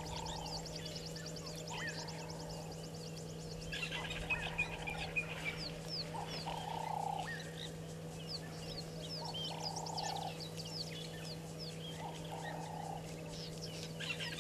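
Wild birds calling: a short lower call repeated every two to three seconds among many quick high chirps and trills, over a steady low hum.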